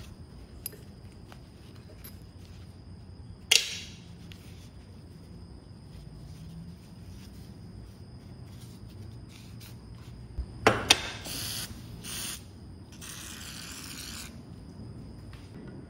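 Metal clinks from a bench vise's screwed-on jaw plates and screws as they are taken off with a screwdriver: one sharp clink a few seconds in and a quick cluster of clinks past the middle. Near the end an aerosol can hisses for about a second and a half as it sprays onto the bare vise jaw.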